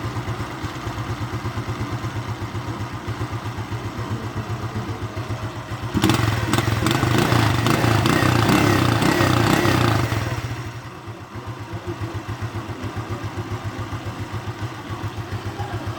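Bajaj motorcycle engine idling with a rapid, even beat; about six seconds in the throttle is opened and held, the engine running louder for about four seconds before it drops back to idle.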